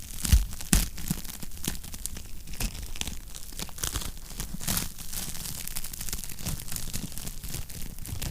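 Wood fire crackling in a fireplace, with irregular snaps and pops over a soft steady rush; two louder pops come close together in the first second.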